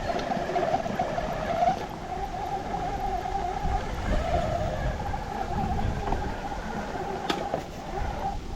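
Radio-controlled rock crawler's electric motor and gears whining steadily, the pitch wavering slightly with the throttle, with a sharp click near the end.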